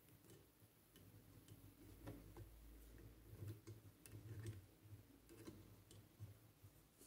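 Faint, irregular clicks as a metal loom hook taps the plastic pegs of a round knitting loom while purl stitches are lifted over the pins, over a faint low hum.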